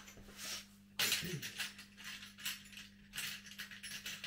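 Small metal pieces clinking and rattling in short irregular bursts, with a sharp click about a second in, as drill bits are handled while the bit is changed.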